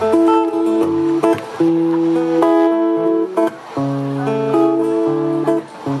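Solo acoustic guitar playing a song's opening, chords plucked and strummed and changing every second or so.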